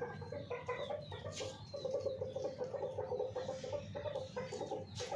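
Hens clucking in a rapid run of short, low clucks.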